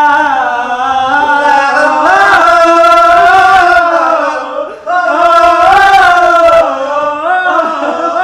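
A man singing loudly without accompaniment, in long drawn-out notes that slide up and down, breaking off briefly about four and a half seconds in.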